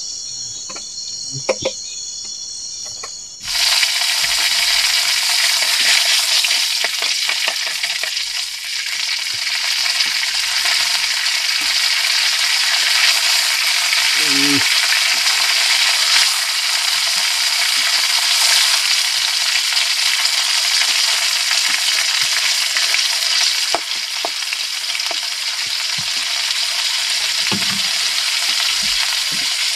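Fish frying in hot cooking oil: a loud, steady sizzle starts suddenly about three and a half seconds in and keeps going, with a few small clicks and pops.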